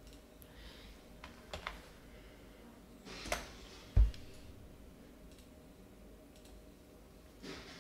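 A few scattered computer mouse and keyboard clicks, with a sharp thump about four seconds in that is the loudest sound.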